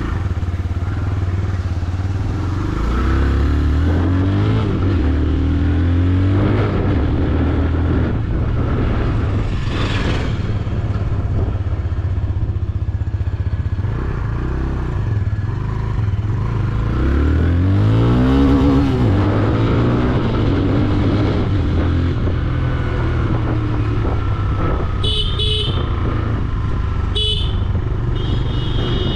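TVS Raider 125's single-cylinder engine under way, its pitch rising and falling as the bike accelerates and eases off through the gears. Short horn toots sound a few times near the end.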